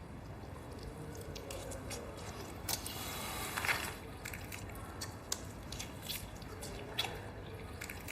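A person eating: chewing, with scattered short clicks of tableware and a brief louder rustle about halfway through.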